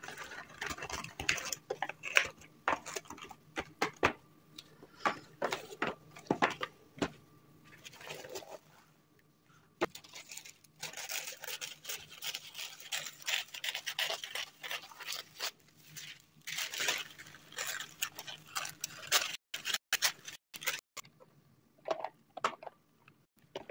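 Thin white cardboard gift box being folded and its flaps tucked in, with short clicks and scrapes. About halfway through, tissue paper crinkles and rustles as it is folded and cut with scissors. A faint steady hum runs underneath.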